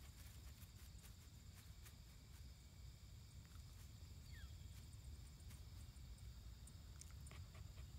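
Near silence: faint outdoor ambience with a steady high insect drone over a low rumble.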